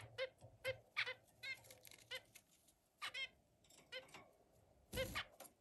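Zebra finch giving many short beeping calls in an irregular series, with a louder knock about five seconds in.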